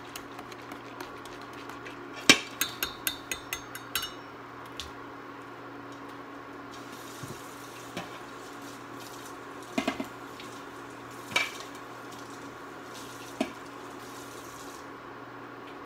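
A wire whisk stirring grits in a stainless steel pan, then tapped several times against the rim in quick, ringing clicks. The thick grits then bubble, with a few louder pops later on, over the steady hum of the induction cooktop.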